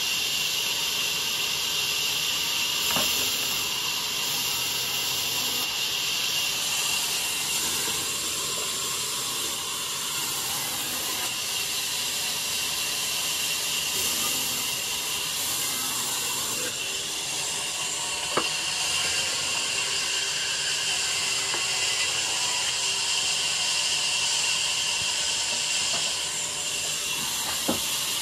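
Vertical band saw cutting through blocks of timber: a steady, high hiss, broken by three sharp knocks, one about three seconds in, one in the middle and one near the end.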